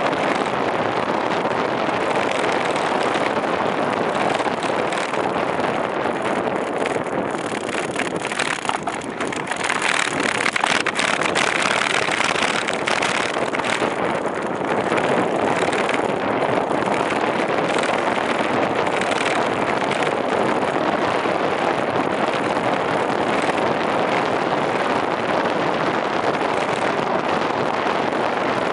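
Steady rushing noise of a bicycle ride along a city street: wind on the microphone and the tyres running over the road surface, turning hissier and rougher for a few seconds about ten seconds in.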